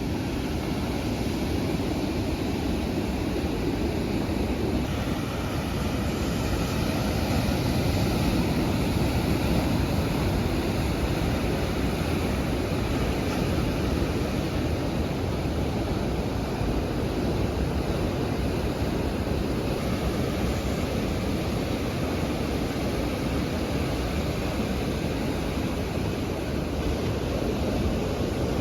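Steady noise of ocean surf and wind on the microphone.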